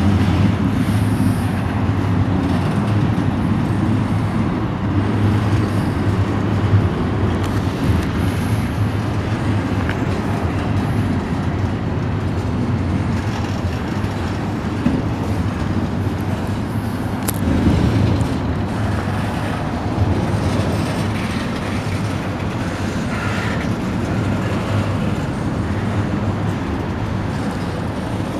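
Double-stack intermodal freight cars rolling past at close range: a steady rumble of steel wheels on rail, with a few sharp clanks from the cars.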